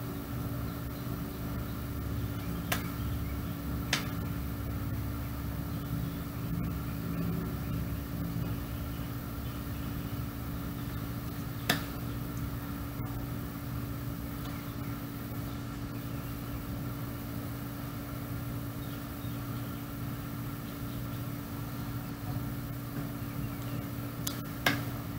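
Steady mechanical hum with several fixed tones, broken by a few faint, sharp clicks: one about three seconds in, one at four seconds, one near the middle and a couple near the end.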